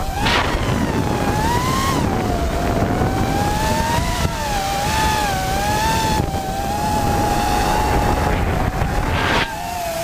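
FPV racing quadcopter's motors and propellers whining, the pitch wavering up and down as the throttle changes. Heard from the onboard camera, with rushing wind noise on the microphone.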